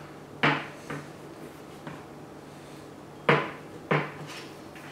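Barreled action of a rifle knocking into a Magpul American Hunter polymer stock as it is pressed down and seated: a sharp clunk about half a second in, a couple of fainter taps, then two more sharp clunks a little past three seconds and at about four seconds.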